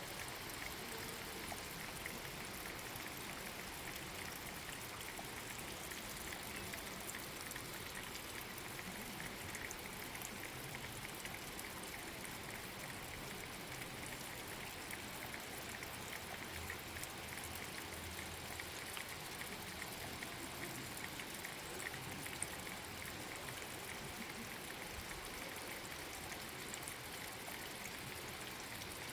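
Water dripping and trickling steadily down moss-covered stones: a dense, even patter of many small drops over a soft running-water hiss.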